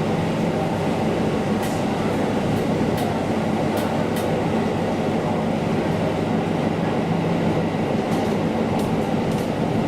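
KiHa diesel railcar running along the line: a steady drone with a low engine hum. Light clicks from the rails come now and then.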